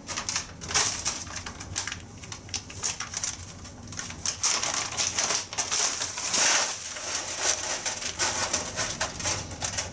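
Frozen strawberries clattering and knocking onto a parchment-lined metal baking tray, with the parchment paper rustling as a hand spreads them out.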